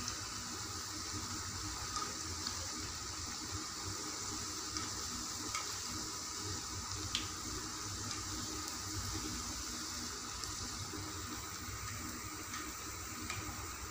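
Chayote pakoda fritters deep-frying in hot oil in a kadai: a steady bubbling sizzle. A few faint clicks come as a thin metal rod turns the fritters against the pan.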